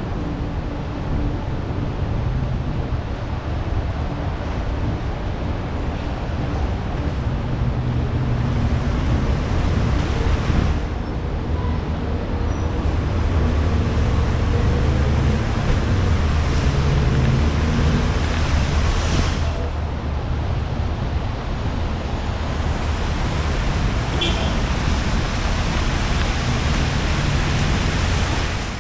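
Wind rushing over a helmet-mounted action camera's microphone while cycling in city traffic, with vehicle engines running underneath. The noise stays steady throughout.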